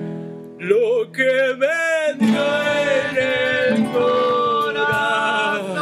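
Band song: male voices singing long held notes over acoustic guitar, after a brief dip in the music about half a second in.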